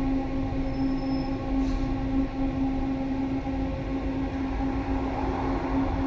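HF 11 AC tram heard from inside: a steady electric hum with a low rumble of the running gear beneath it.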